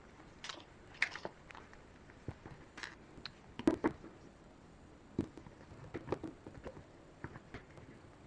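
Irregular soft clicks, taps and rustles of hands handling small plastic headset parts and fittings, the loudest a little under four seconds in.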